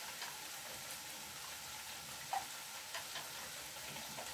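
Chicken frying in a pan with a steady, faint sizzle, and a few light clicks of a wire whisk against a glass bowl as eggs and milk are beaten.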